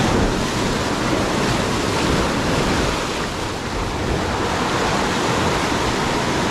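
Sea surf washing in over rocks close by: a steady rush of churning water that eases briefly about three and a half seconds in.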